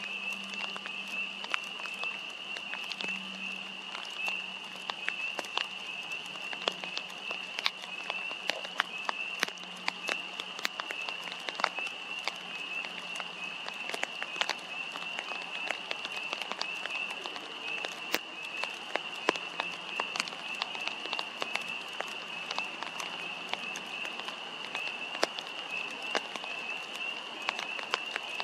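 Raindrops falling in sharp, irregular drips and taps over a steady, high-pitched chorus of frogs trilling.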